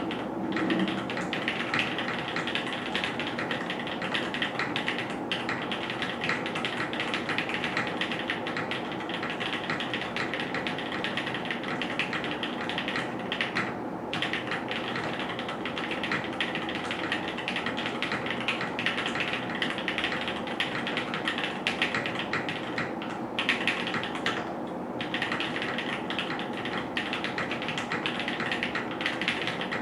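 Steady fast typing on the letter keys of an OTD 356CL mechanical keyboard with Kailh Box Cream Pro linear switches, GMK doubleshot keycaps and a full aluminium plate, picked up by a camera's built-in microphone. A dense run of keystroke clacks with two short pauses, one about halfway through and one a little over ten seconds later.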